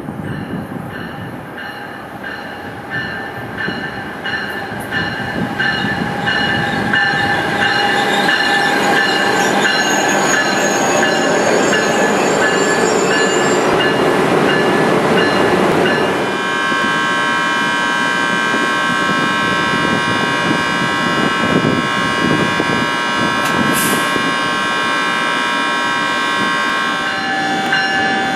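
Passenger train pulling into a station: rolling rumble and wheel clatter build up, with high steady squeals from the wheels and brakes. About halfway through, several shrill tones are held together for about ten seconds as it slows.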